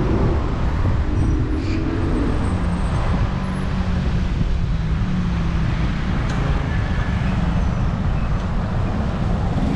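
City street traffic: car and bus engines running as vehicles pass, a steady rumble with an engine hum that rises and fades.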